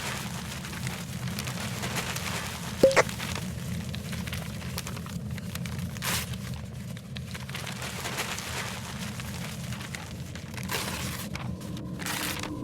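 Crunching, munching sound effect of a creature chewing up books: continuous dense crackling over a low rumble, with one sharp loud crack about three seconds in.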